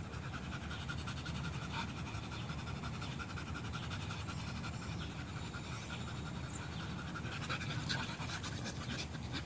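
Two dogs panting quickly and steadily after play.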